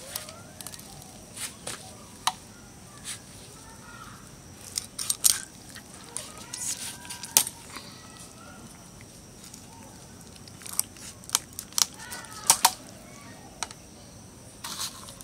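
Scattered short, sharp scrapes, knocks and wet rubbing as whole boal catfish are cleaned with ash in an aluminium basin and scraped against the blade of a boti.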